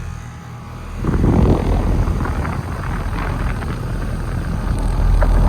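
Tempstar heat pump outdoor unit running in cool mode: at first a steady low hum from its Copeland scroll compressor. From about a second in, a loud rushing, rumbling air noise from the condenser fan takes over.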